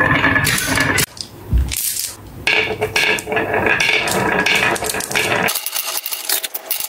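Glass marbles rolling along a wooden wave track, rattling through its hollows and clicking against one another.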